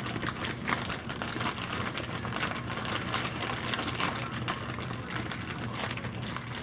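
Plastic zip-top bag crinkling and rustling as hands knead a whole chicken in marinade inside it, a dense run of small crackles, over a low steady hum.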